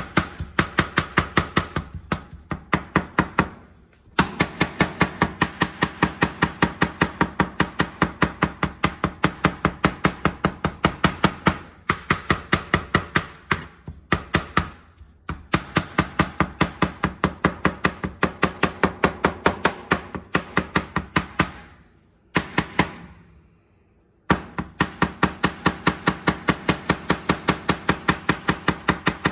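A chef's knife rapidly mincing vegetables on a cutting board: quick, even knocks of the blade on the board, about four to five a second. There are a few brief pauses and a longer one about 22 seconds in.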